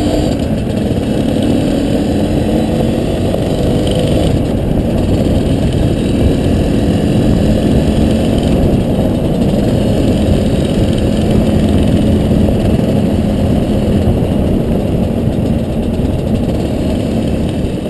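Two-stroke dirt bike engine, a Honda CRM250R, running while being ridden, with a steady engine note over heavy low rumble. The pitch shifts a little in the first seconds, and the sound starts to fade right at the end.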